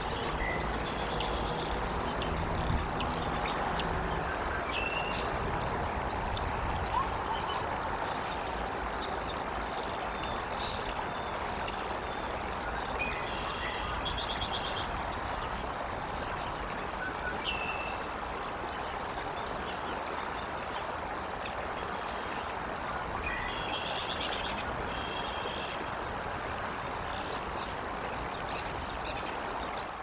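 Wild birds chirping and whistling with short sweeping notes, with two brief rapid trills, over a steady outdoor hiss and rumble picked up by a nest-cam microphone.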